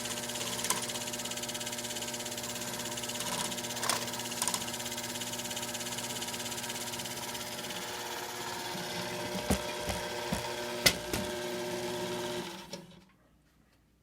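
Treadmill DC motor driving a belt-and-pulley helicopter test rig, running steadily with a few sharp knocks and rattles; the rig shakes because all the apparatus is on one side, unbalanced. Near the end the motor is switched off and runs down quickly.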